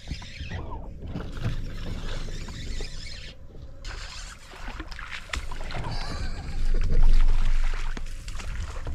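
A hooked bass being fought and reeled in to a bass boat: reel winding and rod and line working, with many small clicks and a louder rush of noise about seven seconds in.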